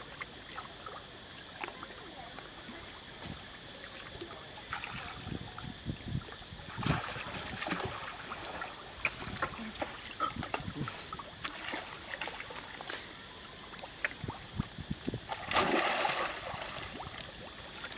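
Macaques splashing and sloshing as they swim and play in a pool of water, with scattered small splashes and one big splash about sixteen seconds in as a monkey leaps into the water.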